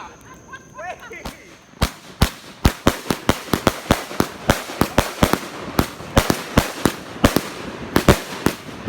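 Firecrackers going off in a rapid, irregular string of sharp cracks, several a second, starting about two seconds in.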